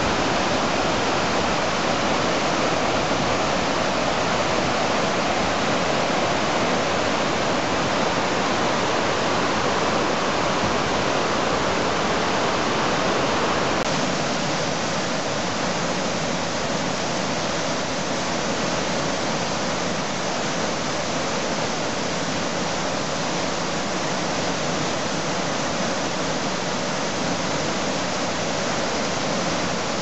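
Steady rush of water: a stream cascading over boulders, changing about fourteen seconds in to a waterfall pouring through a rock channel, slightly quieter.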